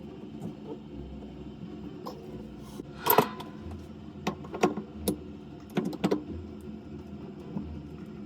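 Scattered clicks and light knocks of faucet parts being handled while a single-lever kitchen mixer tap is taken apart, a few seconds apart, over a low steady hum.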